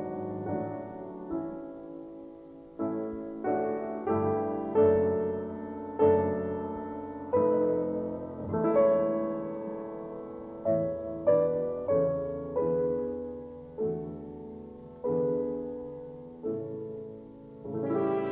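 Slow, gentle solo piano background music: single notes and chords struck about once a second or less, each fading away. A violin comes in at the very end.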